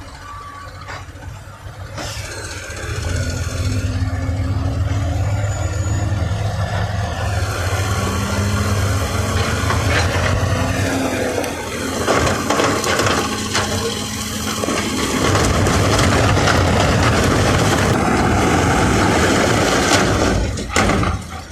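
Diesel engine of heavy construction machinery running steadily, getting louder about two seconds in, with a dense rushing noise added over the second half.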